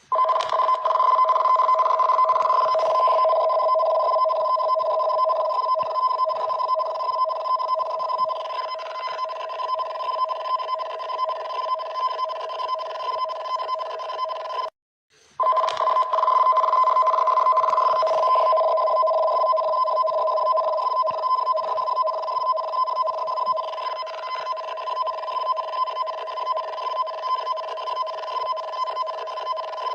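Japanese emergency warning broadcast (EWS) alarm signal for a tsunami warning: a harsh, buzzing warble made of two steady tones. It cuts out for a moment about halfway, then starts again.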